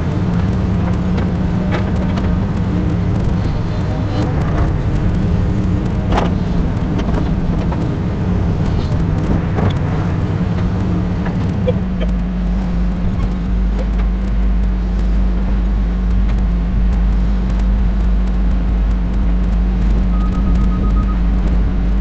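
Steady low rumble of heavy construction machinery engines, with scattered knocks and clanks. About halfway through the deepest part of the rumble changes abruptly, and near the end a rapid string of short high beeps comes in.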